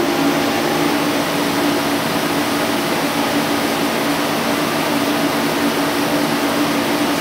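CNC lathe turning a metal workpiece under flood coolant: steady machining noise and coolant spray hiss, with a held low hum from the running machine.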